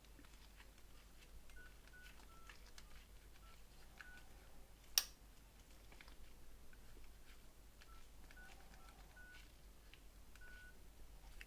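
Nokia 7210 keypad beeping as its keys are pressed: short high beeps in two runs, with faint key clicks between them. One sharp click comes about five seconds in.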